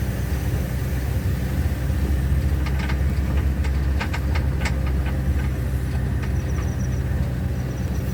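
Ambulance running along a road, heard from inside the cab: a steady low engine and road drone, with a few sharp knocks and rattles about three to five seconds in.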